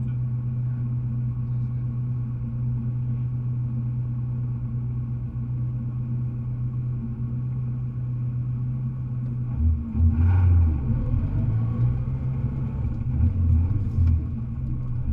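Rally car engine idling steadily, heard from inside the cabin. About ten seconds in it revs in short, uneven bursts as the car moves forward.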